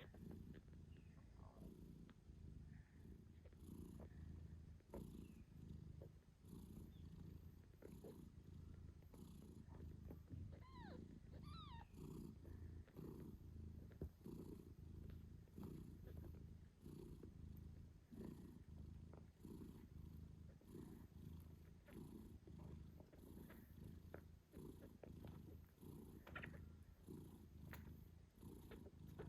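British shorthair mother cat purring softly and steadily, with a few faint high squeaks from her newborn kittens about ten to twelve seconds in and once more near the end.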